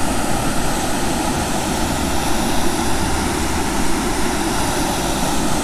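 Waterfall pouring into a rocky stream: a steady, even rush of water.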